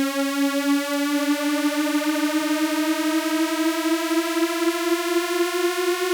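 Native Instruments Massive software synth playing one long sustained sawtooth note with detuned unison, its pitch gliding slowly and steadily upward under pitch bend: the classic EDM uplift riser.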